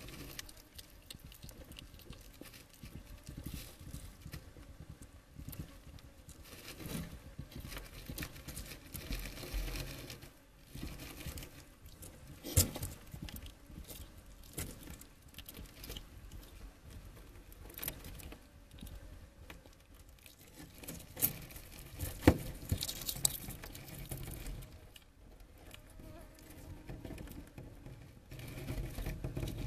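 A hedgehog chewing a snail close to the microphone: a steady run of small irregular wet clicks and smacks, with a few sharper snaps scattered through.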